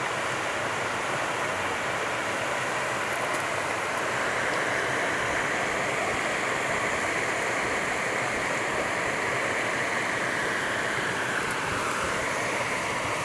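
A steady rushing noise with no distinct events, growing a little louder about four seconds in.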